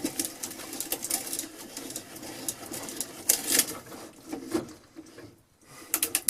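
Ratchet of a vintage hand drill clicking rapidly as the bit is ratcheted into wood. The clicking thins out and stops about five seconds in, with a few last clicks near the end.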